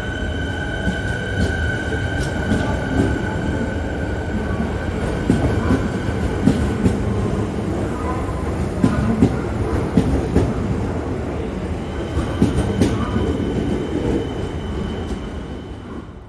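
Electric suburban train running on track, its wheels clicking repeatedly over rail joints, with a high steady whine in the first few seconds. The sound drops away near the end.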